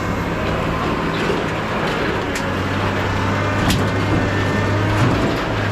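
Engine running steadily with a low hum, with a few sharp metal clanks about two and a half, three and a half and five seconds in.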